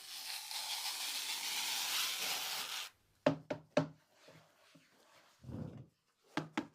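Handling noise: a rustling hiss for about three seconds, then a few sharp knocks and taps, a soft thud and more light clicks, as of the speaker or its packaging being handled.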